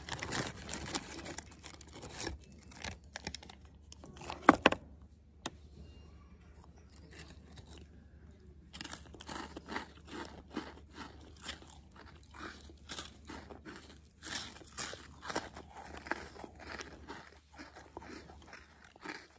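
Parle-G glucose biscuits being bitten and chewed close to the microphone: a string of short, dry crunches, with a lull of a few seconds about a quarter of the way in. The loudest is a sharp crack just before the lull.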